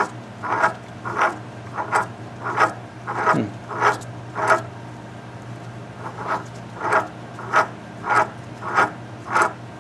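Hand-turned valve seat cutter rasping against a valve seat in a Stover CT-2 hit-and-miss engine's cylinder head: short scraping strokes about one and a half times a second, with a brief pause around the middle. The cutter is reseating the valve to cut out a gouge in the seat.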